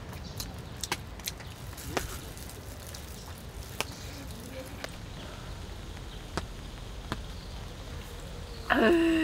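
Scattered light clicks and taps over a low steady background. Near the end comes a woman's loud, drawn-out satisfied "ahh" that falls in pitch, after a swallow from a can.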